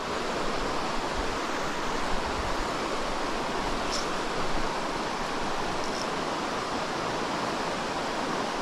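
Steady rushing of a mountain stream pouring over a small cascade and rocky riffles.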